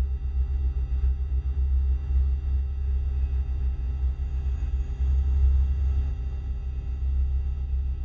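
Science-fiction UFO sound effect: a deep, steady low hum that wavers slightly in level, with faint high steady tones above it.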